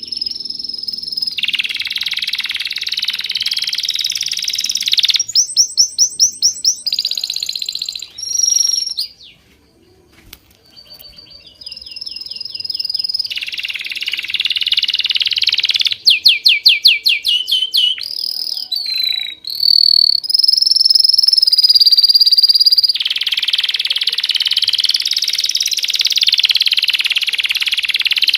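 Songbird singing: long, rapid trills alternate with runs of quick down-slurred whistles, with a brief pause about ten seconds in.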